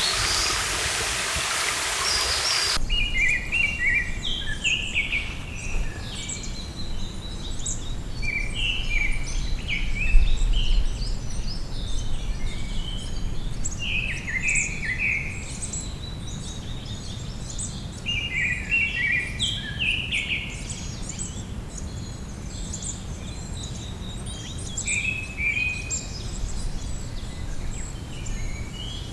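Rushing stream water for the first few seconds, cutting off abruptly. Then songbirds sing in the forest: one bird repeats short descending phrases every few seconds among higher chirps, over a low rumble.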